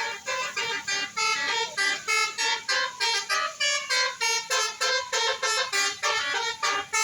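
Bus 'telolet' multi-tone musical horn playing a fast tune, the notes changing about three to four times a second without a break.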